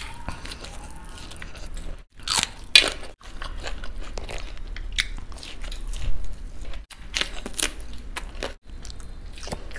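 Close-miked eating sounds: crisp bites into fried cauliflower pakoda and chewing, in short clips cut one after another.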